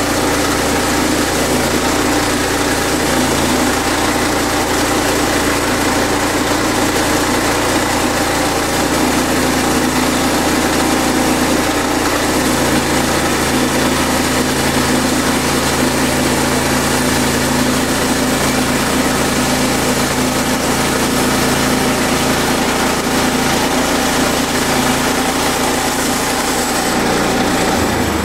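Sawmill engine running steadily, with a slight change in its pitch about twelve seconds in and again near the end.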